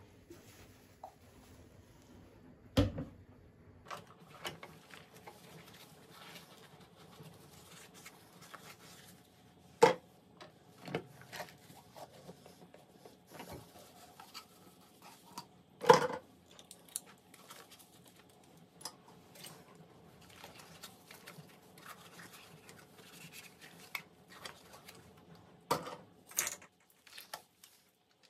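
Scattered clicks and light knocks of household objects being handled, over a faint steady hum, with a few sharper knocks standing out.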